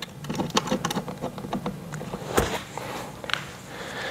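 Small clicks and rattles of gaming-chair parts and bolts being handled during hand assembly, with one sharper knock a little past halfway.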